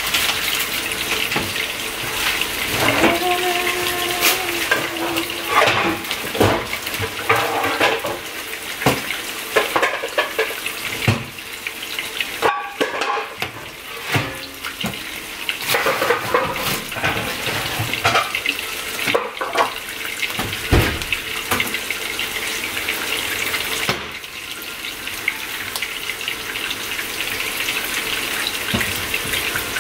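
Beef burger patty sizzling in hot oil in a frying pan, a steady hiss, with irregular clicks and clatter from plastic packaging, utensils and a board being handled.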